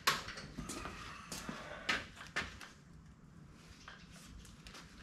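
A sharp knock at the start, then a few light clicks and knocks of tools and parts being handled on a workbench.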